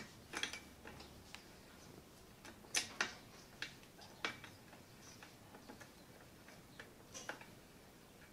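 Faint, irregular metal clicks and taps of an adjustable wrench on a child's bike pedal as the pedal is tightened onto the crank: a handful of sharp ticks spread over several seconds, the loudest about three and four seconds in.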